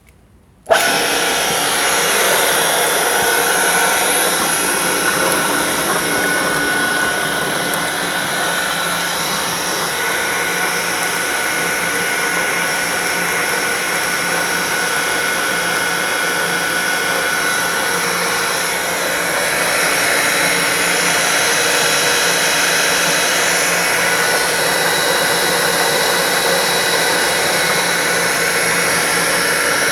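Sanso Electric PHP-4043BHZ7 three-phase hot-water circulation pump switching on about a second in and then running steadily, with a steady whine over its running noise. The owner feels the motor sounds slightly abnormal.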